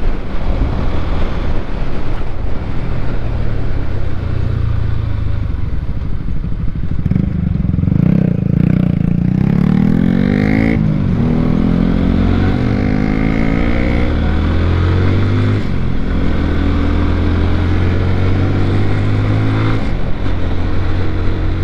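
A sport motorcycle's engine running steadily under the rider on the road. Its pitch rises and falls in the middle, then settles back to a steady cruise.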